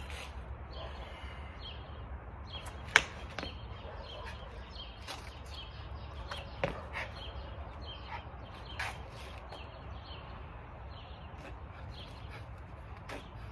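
Outdoor ambience of birds chirping over a steady low rumble, broken by a few sharp snaps. The loudest snap comes about three seconds in, with fainter ones later.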